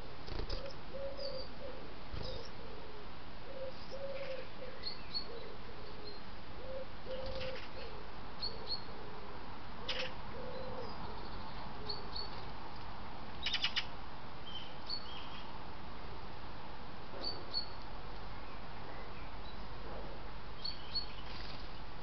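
Garden birds calling: a low call repeated many times through the first half, with short high chirps throughout and a brief rattle about halfway through, over a steady hiss.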